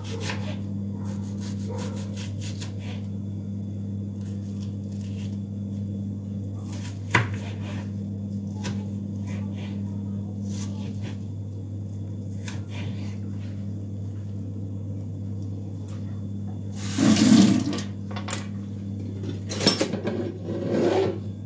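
Kitchen knife slicing onions on a wooden cutting board: irregular light clicks as the blade meets the board, over a steady low hum. About 17 seconds in comes a louder clatter of kitchenware lasting about a second, and more clattering near the end as a pot is handled.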